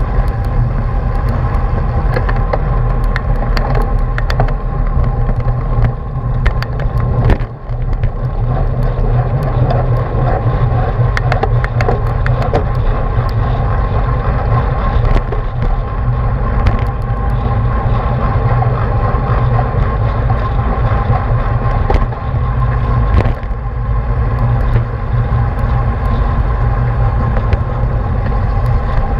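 Wind rushing over a bike-mounted action camera's microphone while riding in a racing pack, a steady low rumble with scattered clicks and rattles from the bicycle. The rumble briefly drops about seven seconds in.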